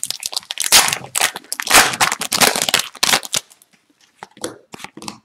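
Foil wrapper of an Upper Deck Extended Series retail hockey card pack being torn open and crinkled in the hands: dense crackling that stops about three and a half seconds in. A few soft clicks follow as the cards inside are handled.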